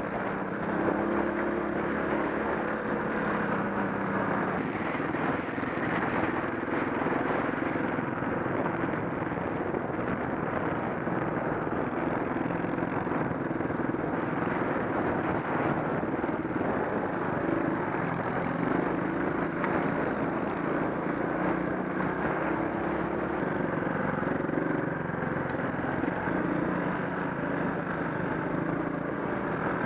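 Trail motorcycle engine running steadily at low revs, its pitch shifting gently up and down as the bike rides a gravel forest track, heard from the bike itself over a steady rushing noise.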